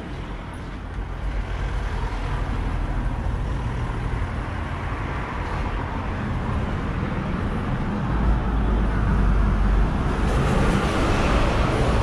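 Road traffic: motor vehicles passing steadily, with a deeper engine rumble swelling in the latter part as a heavier vehicle draws close.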